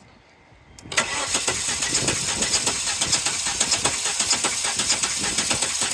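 Volvo S70's five-cylinder engine cranked over by its starter motor with a spark plug out, for a compression test on cylinder 2. It is a steady, rhythmic cranking that starts about a second in, and the engine does not fire.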